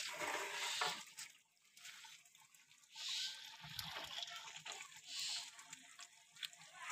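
Faint sloshing of chicken curry gravy being stirred and lifted with a long-handled ladle in a large metal cauldron while the meat braises in its spice masala. There are a few short, quiet bursts with near-silent gaps between them.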